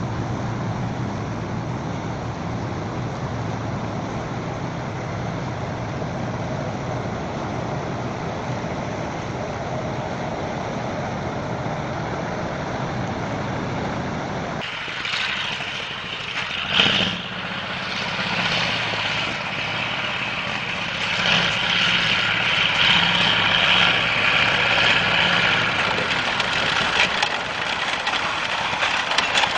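Heavy truck engine running steadily. About halfway through, the sound switches abruptly to a noisier, brighter vehicle sound, with one loud knock a couple of seconds after the change.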